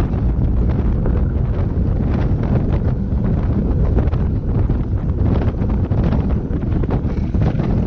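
Heavy wind buffeting the microphone of a handlebar-mounted GoPro on a moving beach-race bike, a dense low rumble with light rattling over it.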